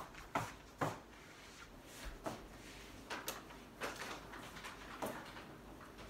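Footsteps on a wooden floor, three quick steps in the first second. After that come scattered light knocks and clatters, like things being handled and a chair being moved at a dining table.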